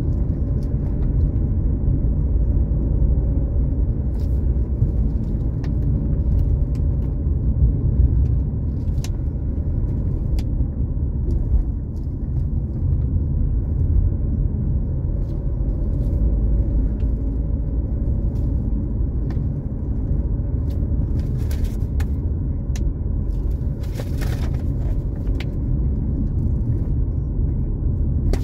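Car engine and road noise heard from inside the cabin while driving: a steady low rumble, with a few faint clicks now and then.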